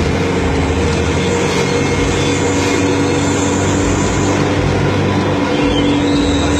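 Bus engine running steadily under way: a continuous low drone with a steady whine over it.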